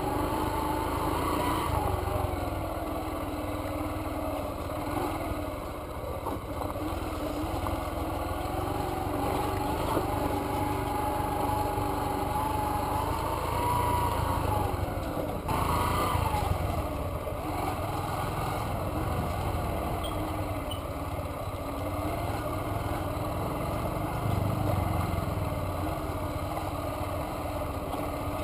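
Motorcycle engine running while the bike is ridden along a dirt trail, its pitch rising and falling with the throttle. About halfway through the sound changes abruptly, with a quick rev up and back down.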